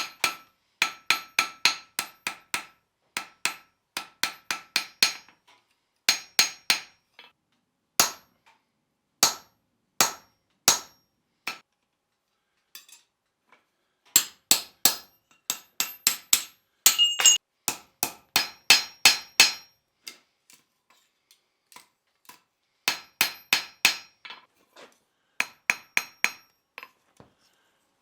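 Hand hammer striking hot steel on an anvil in quick runs of ringing blows, about three or four a second, with short pauses between runs: forging a bevel along the edge of a plasma-cut steel hook blank.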